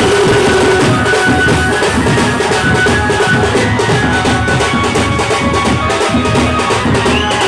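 Muharram drumming: large double-headed bass drums beaten with sticks in a fast, dense, steady rhythm. A high steady tone joins near the end.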